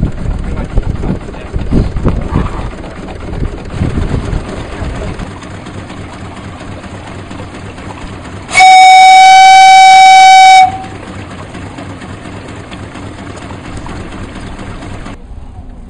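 A steam launch's steam whistle blown once for about two seconds, a single steady high note, midway through. Around it is the steady background noise of the boat under way.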